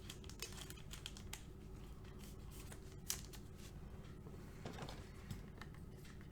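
Faint, scattered light clicks and brief rustles of trading cards being handled, over a low steady hum.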